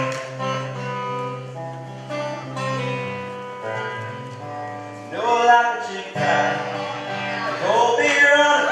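Steel-string acoustic guitar strummed live, ringing out sustained chords of the song's opening. A voice comes in briefly about five seconds in and again near the end.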